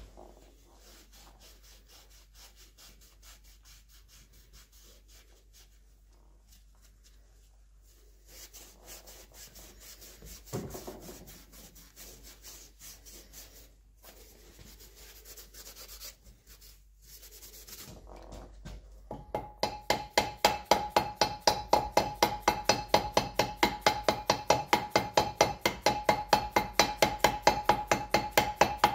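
Quiet handling and rubbing of metal gearbox parts, then, from about two-thirds of the way through, a steady run of sharp metallic strikes or clicks at about four a second, each with a ringing tone.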